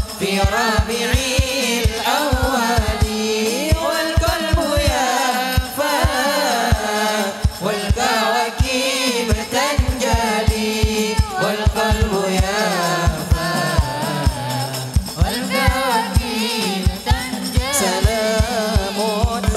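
Hadrah sholawat: a group of male voices singing an Arabic devotional chant over hand-beaten frame drums (rebana/terbang), played loud through a PA sound system. Deep drum thumps beat a busy, uneven rhythm under the melodic singing.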